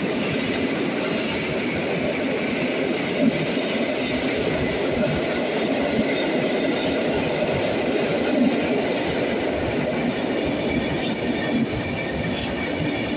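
Intercity passenger coaches rolling past along the track: a steady rumble of wheels on rail with brief high wheel squeals, more of them in the second half. The sound rings off the concrete of an underground station.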